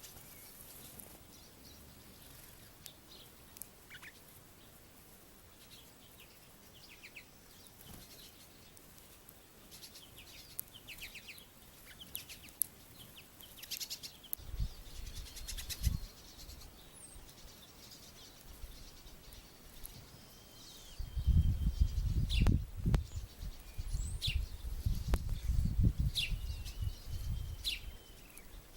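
Small songbirds chirping and calling at a backyard feeder: short chirps, quick trills and a few brief whistles, scattered throughout. A low rumbling noise comes in briefly about halfway through, then again for the last several seconds, where it is the loudest sound.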